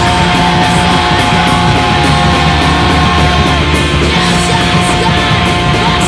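Studio recording of a crust punk band playing loud and dense: distorted electric guitars, bass and drums with cymbals, with long held guitar notes ringing over the chords.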